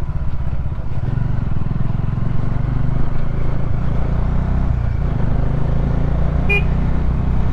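Bajaj Dominar 400's single-cylinder engine running at a steady pace while riding. Near the end there is one short horn beep.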